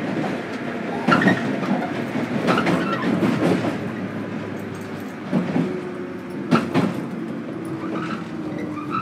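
Running sound inside a JR Kyushu 103 series 1500-subseries electric train motor car (KuMoHa 103-1512) between stations: a steady rumble of wheels on rail with several sharp clacks over rail joints, about one a second, and a steady motor tone that comes in about halfway.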